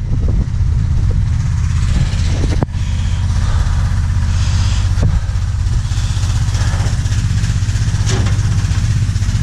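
Pressure washer running: a steady low motor drone with a fast pulsing beat, over a hiss. A few sharp knocks come through about two and a half, five and eight seconds in.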